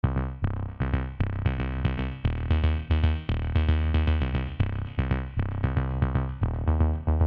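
Electronic background music with a steady drum-machine beat and synthesizer chords, starting suddenly.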